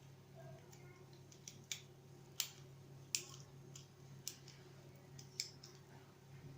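Sharp, irregular metallic clicks, about eight of them, from a padlock being worked with lock picks.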